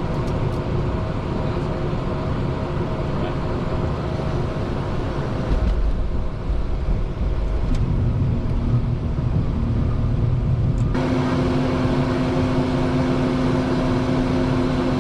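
Steady machine drone with a few constant hum tones. About six seconds in a deep rumble joins it, and near eleven seconds it turns brighter with a stronger low hum.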